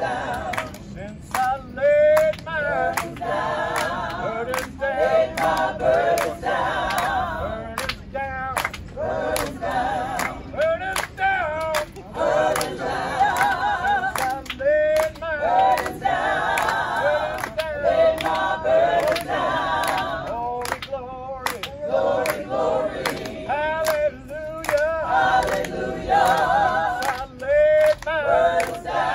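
Gospel choir singing a cappella, several voices together with vibrato, and hand claps keeping time.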